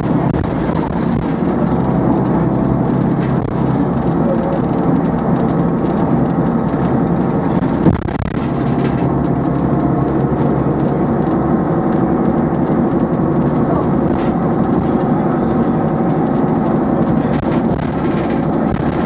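Metro-Scania single-decker bus engine running steadily, a loud drone heard from inside the passenger saloon while the bus is under way. A single knock about eight seconds in.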